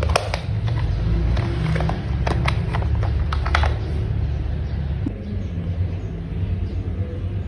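Hard plastic toy parts clicking and tapping as they are handled and fitted together: many sharp clicks in the first half, fewer after that, over a low steady hum.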